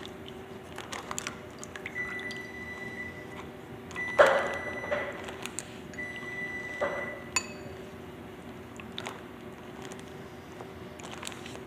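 Stirring a pot of sauce on the stove: a spoon clinking and knocking in the pot, the loudest knock about four seconds in, over a steady hum. A steady high tone sounds three times for about a second each.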